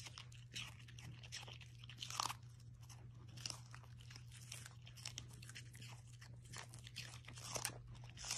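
Two small dogs chewing raw green vegetable stalks: irregular crisp crunches and bites throughout, over a faint low steady hum.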